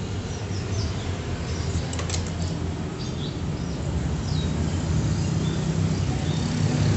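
A steady low engine hum that grows slightly louder toward the end, with small birds chirping now and then and a single light click about two seconds in.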